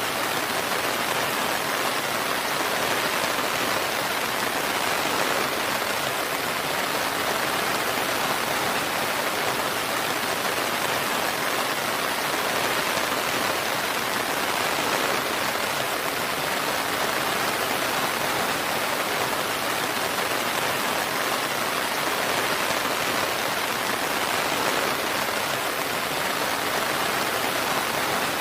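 Steady, even rainfall, a continuous hiss with no thunder or separate drops standing out.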